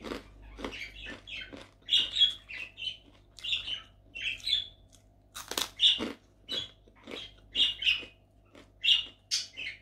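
Close-up crunching of crisp kerupuk (fried Indonesian crackers) being bitten and chewed: a rapid, irregular series of sharp crackles, with one louder crunch about halfway through.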